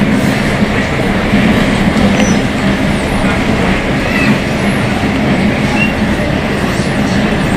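Metro train running at speed between stations, heard from inside the car: steady rumble of wheels on track under a low, steady, growling drone from the traction motors.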